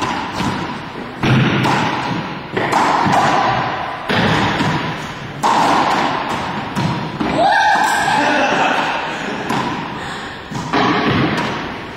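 Racquetball rally in an enclosed court: sharp smacks of the ball off racquets and walls, each ringing on in the court's echo, about every one to two seconds.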